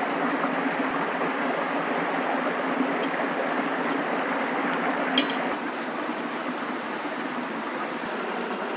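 Steady rushing noise like running water or wind through the trees, with a single sharp snap about five seconds in.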